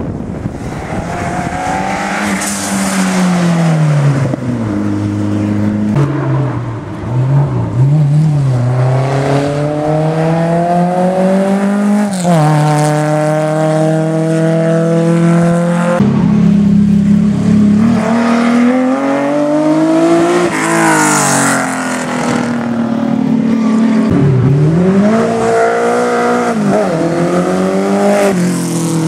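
Historic racing cars climbing a hill one after another under full throttle. Each engine revs up and the pitch drops back at every upshift, over and over, with cars passing close by.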